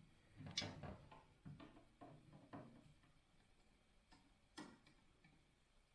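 Faint, scattered metal clicks and taps as a rivet squeezer's yoke and a rivet are worked into position by hand against an aluminium piano hinge.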